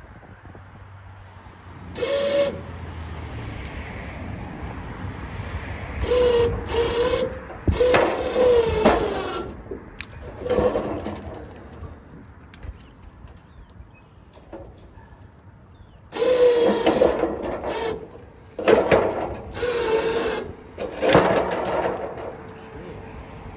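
Wire shopping cart scraping and squealing against a metal railing as it is dragged up and over, in repeated bursts with a wavering screech.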